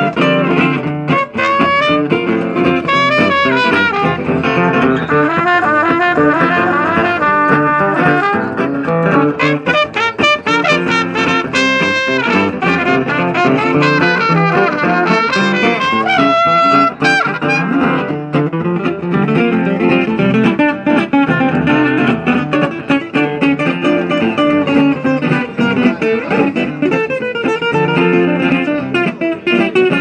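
Live music: an acoustic guitar is strummed while a trumpet plays a melody over it.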